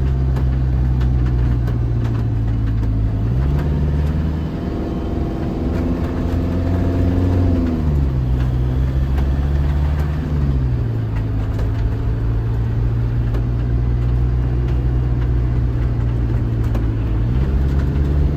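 Motorhome engine running while driving along a road, with steady road noise; the engine note steps up about three and a half seconds in, drops back around eight and ten seconds, and rises again near the end.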